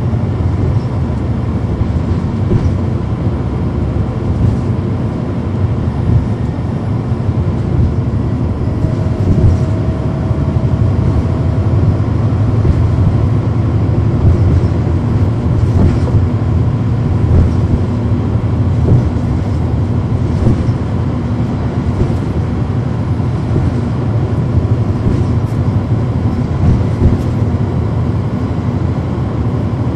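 Inside a 2010 NABI 40-SFW transit bus under way: the Cummins ISL9 diesel engine running steadily with a low rumble of engine and road noise, through its ZF Ecomat six-speed automatic transmission. Scattered clicks and knocks of body rattle come through.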